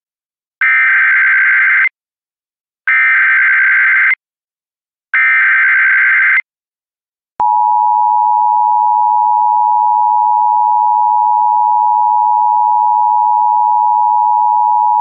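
Emergency Alert System signal: three short bursts of the warbling SAME digital header data tones, evenly spaced, then about halfway through the steady two-tone EAS attention signal starts and holds.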